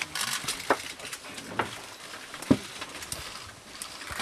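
Scattered clicks, knocks and rustling of people moving about a stopped train carriage that has lost power, with no air-conditioning hum, and one sharp knock about two and a half seconds in.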